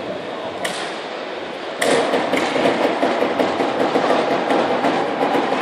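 Trial motorcycle engine running with sharp throttle blips about half a second and nearly two seconds in, after which it runs steadily louder, echoing in a large indoor hall.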